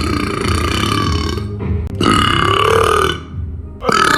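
A man burping loudly: three long, drawn-out belches of about a second each, with short breaks between them. The third starts near the end.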